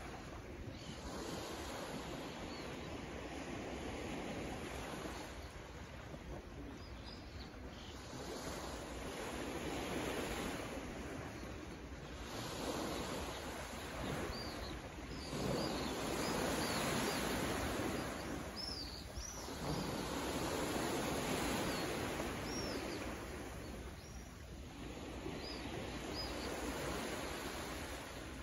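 Small waves of a calm sea washing in on a rocky shore, swelling and fading every few seconds, with scattered high bird chirps over them.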